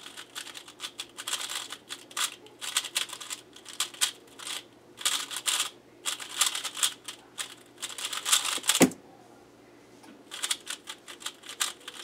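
QiYi Valk 3 speedcube being turned fast in a timed solve: runs of quick plastic clicks and clacks from the layer turns, broken by short pauses, with one louder knock about three-quarters through and a longer pause after it.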